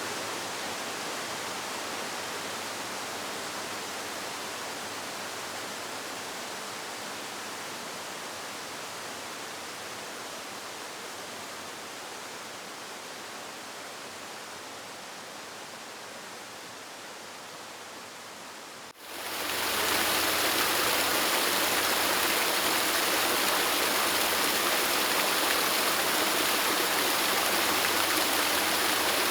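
Waterfall rushing as a steady, even hiss that slowly grows quieter, then about two-thirds of the way through gives way abruptly to a louder, fuller rush of falling water.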